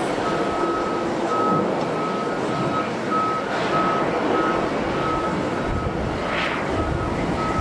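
A vehicle's reversing alarm beeping with a single high tone, a little under two beeps a second, over a loud, steady rushing noise. A deeper rumble swells near the end.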